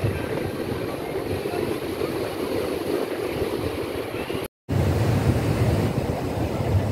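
Sea surf breaking and washing up a sandy beach in a steady rush, with wind buffeting the microphone. The sound drops out for a moment about four and a half seconds in.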